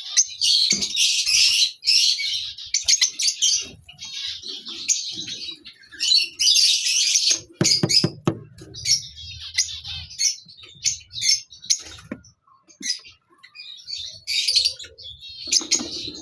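Lovebirds chattering in rapid bursts of shrill, high chirps, with a few sharp knocks a little past the middle.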